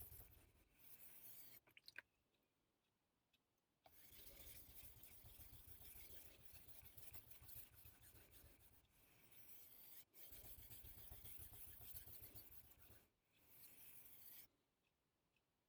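Faint scraping of a yanagiba's edge rubbed back and forth on a very coarse stone, in runs of strokes with a pause about two seconds in and another near the end: the edge is being ground down to take out nicks before sharpening.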